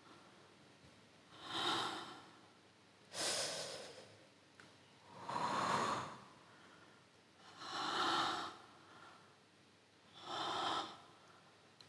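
A person's slow, deep breathing: five long breaths, one every two to three seconds, with quiet between them.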